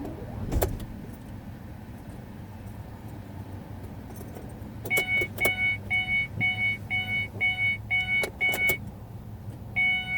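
A car's warning chime beeps at a steady pitch about twice a second from about halfway through, ending with one longer beep, in a car that won't start. A few sharp clicks come in among the beeps, and a sharp click sounds near the start, over a low steady hum.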